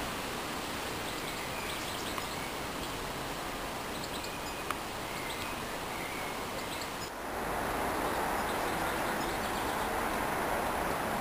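Outdoor ambience: a steady rushing background with a few faint bird chirps in the first half. About seven seconds in the background changes abruptly to a louder, fuller rush.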